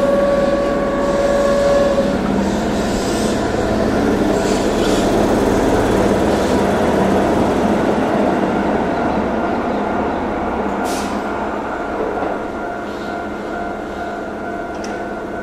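Keihan electric train running through the station, a loud, steady rush of wheels on rails. A steady tone sounds for about two seconds at the start.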